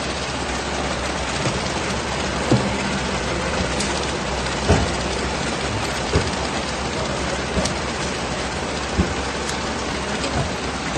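Hitachi multi-pocket banknote sorting machine running, feeding 500-rupee notes through at high speed to count and sort them by fitness and orientation: a steady, dense rustling whir with a sharp knock about every one and a half seconds.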